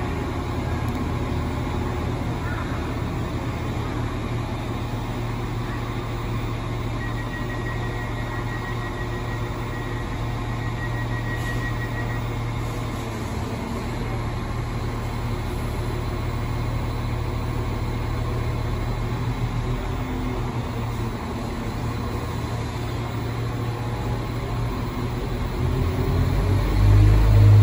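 Class 195 diesel multiple unit's underfloor diesel engines idling with a steady low hum while the train stands, with a run of rapid high beeps for about five seconds a quarter of the way in. Near the end the engines rev up louder as the train pulls away.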